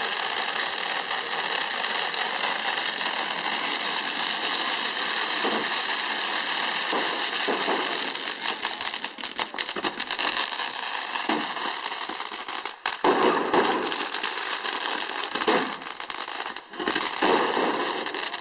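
Fireworks going off in a dense, continuous crackle and fizz, breaking up after about eight seconds into separate pops and bangs.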